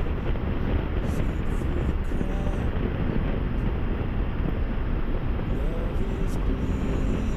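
Motorcycle at highway speed: a steady rush of wind and road noise with the engine running underneath, even and unbroken throughout.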